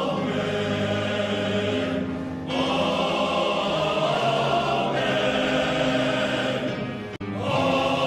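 Male voice choir singing held chords, with a short break between phrases about two and a half seconds in and another brief break just after seven seconds.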